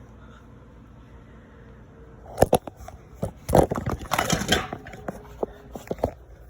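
Kitchen clatter: a run of sharp knocks and clicks with a burst of rustling, starting a little over two seconds in and stopping about six seconds in.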